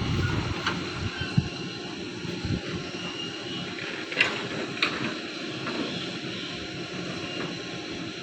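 Diesel engine of a backhoe loader running steadily, with a few sharp knocks over it.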